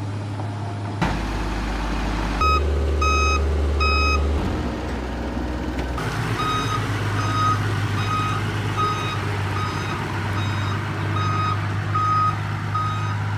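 A heavy vehicle's reversing alarm beeping steadily, about three beeps every two seconds, over a diesel engine running. The beeps come in a short run of three, then resume after about six seconds and continue evenly to the end.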